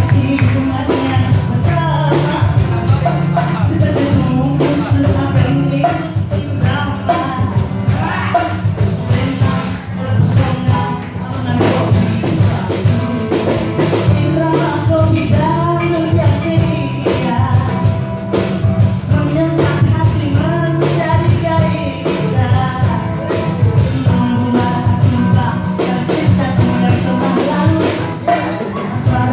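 Live dangdut song: women singing through microphones over a small band of acoustic guitar and drums, with a steady, driving beat.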